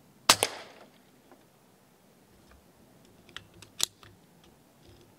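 Air rifle firing once, a sharp crack about a third of a second in, the loudest sound. A few small clicks follow about three seconds later, then one louder sharp click near four seconds in.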